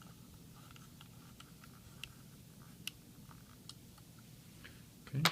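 A small screwdriver turning a tiny mounting screw into a laptop hard-drive caddy: a few faint, scattered clicks and ticks of metal on metal over a low hum.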